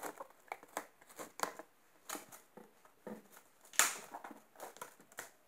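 Plastic cling film crinkling and crackling as it is stretched and pressed over the rim of a plastic mixing bowl, in irregular short rustles, the loudest a little under four seconds in.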